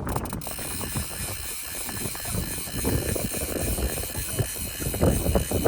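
A small motor running with a steady whine over a rumbling wind-like noise.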